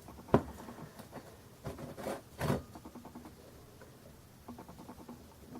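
A few sharp metal clicks and knocks as a small homemade tool is fitted to the valve stem of a mini oxygen bottle, followed by a faint, fast, even ticking in the second half.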